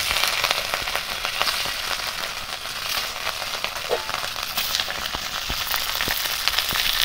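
Pieces of rohu fish frying in hot oil in an aluminium karai: a steady sizzle full of small crackles and pops.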